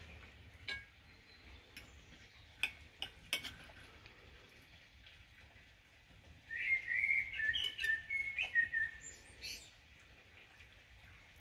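Knife and fork clinking against a plate a few times, then a bird singing a warbling phrase of about three seconds in the second half, louder than the cutlery.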